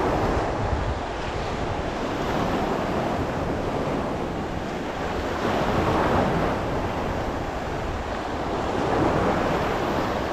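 Choppy sea surf washing and breaking on the shore and around a rock, with wind buffeting the microphone. The wash swells louder a few times as waves come through.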